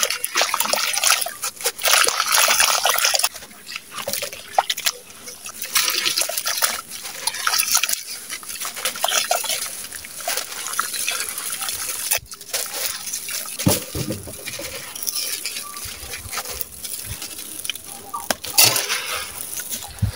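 Hands squeezing and crumbling damp sand-cement chunks over a clay pot of water, making a dense, irregular gritty crackling. Crumbs and drips fall into the water in the pot.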